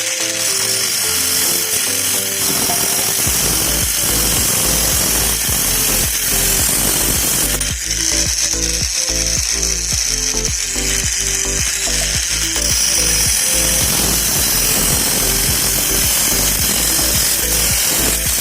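Homemade angle grinder driven by a 12 V car starter motor, running with a steady high hiss, dipping briefly about eight seconds in, over background music with a beat.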